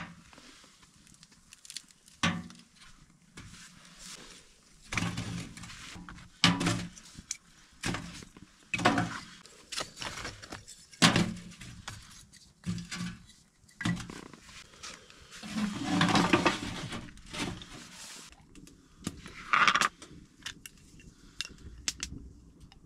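Camp cooking gear being handled: irregular clinks, knocks and rustles of small metal items, with a louder, longer clatter about sixteen seconds in.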